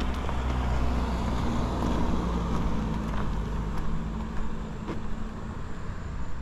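A motor vehicle's engine running with a steady low hum, swelling over the first couple of seconds and easing off toward the end.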